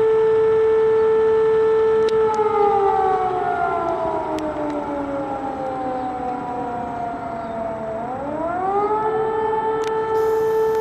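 A siren sounding one steady tone. About two seconds in, its pitch slowly sinks, then near the end it climbs quickly back up to the steady tone.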